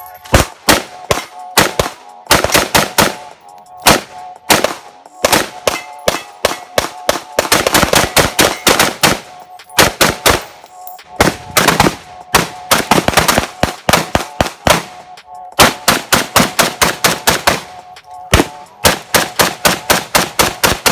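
AK-pattern rifles firing outdoors: single shots and rapid strings of evenly spaced shots, several a second, with short pauses between strings.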